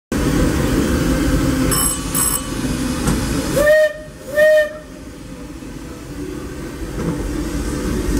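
Disneyland Railroad steam locomotive whistle giving two short toots less than a second apart, the standard whistle signal to release brakes and proceed.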